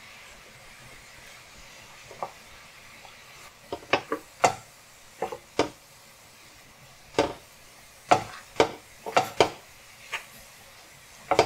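A wooden spoon knocking and scraping against a stainless steel skillet as sliced mushrooms are stirred and tossed in butter: about a dozen irregular clacks starting about four seconds in, over a faint steady sizzle.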